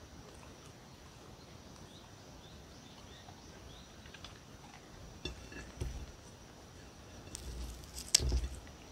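A dog eating pieces of raw cucumber: faint crunching and clicking from its chewing from about five seconds in, with a sharp click near the end.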